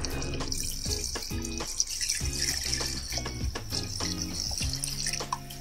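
Mutton stock (yakhni) poured in a steady stream into a pot of cooked mutton, splashing as it fills. The pour begins about half a second in and stops near the end.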